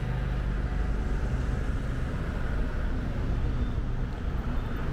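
Road traffic, with a vehicle engine running close by as a steady low hum under general traffic noise.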